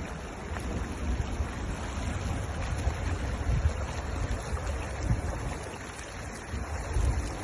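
Flash-flood water rushing down a wadi, a steady broad rush, with wind buffeting the microphone in low gusts.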